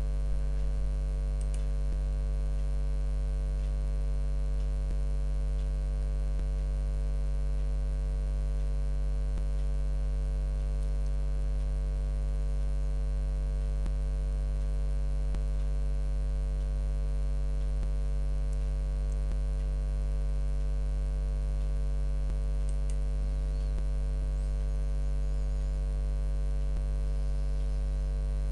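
Steady electrical mains hum: a low buzz with a stack of even overtones that does not change.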